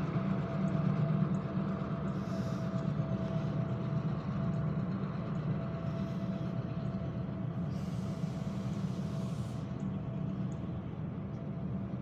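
Steady low hum of an idling engine, with a faint high whine held at one pitch. A short hiss comes in about eight seconds in.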